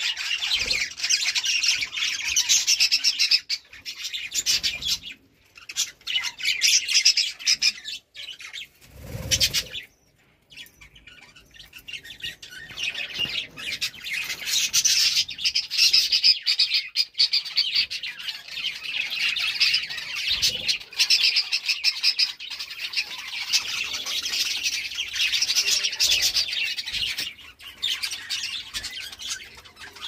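A flock of budgerigars chattering and warbling in a dense, unbroken stream of chirps and squawks, with a brief lull about a third of the way in and a dull thud about nine seconds in.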